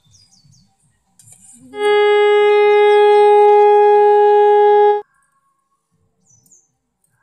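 A conch shell (shankha) is blown in one long, steady note of about three seconds. The note slides up into pitch at the start and cuts off sharply, sounded as part of a puja.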